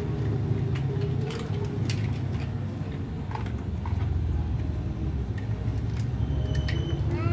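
Plastic toys clattering and knocking together in a water-filled plastic tub as they are rummaged through and lifted in a plastic basket, a scatter of light clicks over a steady low hum.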